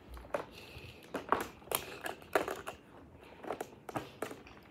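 Irregular light plastic clicks and knocks as hands fit and handle the pieces of a toy car racing track.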